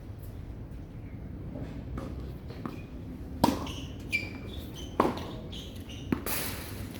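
Tennis ball being struck and bouncing during a rally: three sharp pops, the first two about a second and a half apart and the third about a second later, with fainter taps between them and a brief squeak in the middle.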